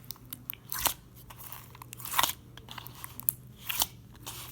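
Slime being squished and poked by hand, giving wet crackling squishes and sharp clicks, the loudest about one and two seconds in.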